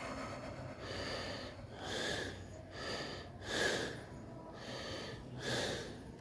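A man breathing heavily in a run of loud, breathy gasps about once a second, the loudest a little past halfway: laboured breathing of someone who feels faint.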